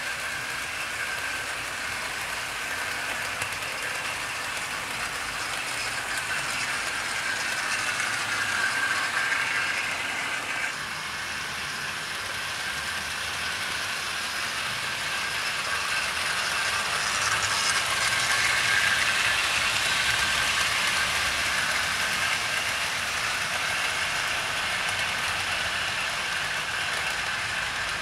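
00 gauge model trains running on the layout's track: a steady whir of motors and wheels on the rails. It swells briefly about a third of the way in, then grows loudest about two-thirds through as a train passes close.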